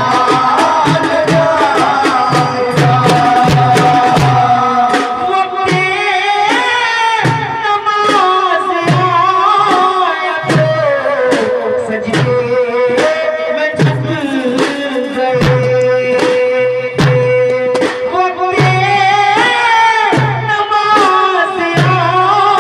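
A man's solo voice singing an Urdu devotional manqabat to Husain through a microphone and PA, with melismatic glides and long held notes. A frame drum keeps a steady beat beneath it.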